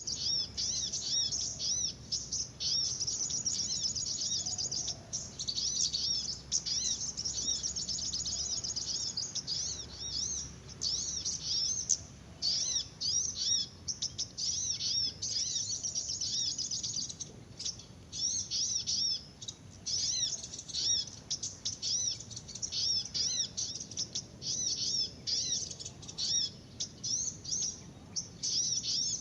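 Many small songbirds chirping and twittering in a dense, nearly unbroken chatter of quick high notes, with short breaks here and there.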